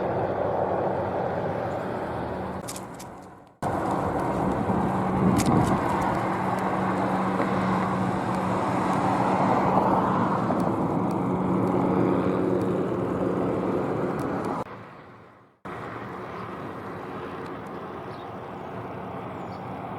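Low-flying helicopter running steadily, with a constant engine tone under the rotor noise. It fades out and comes straight back twice, quieter the last time.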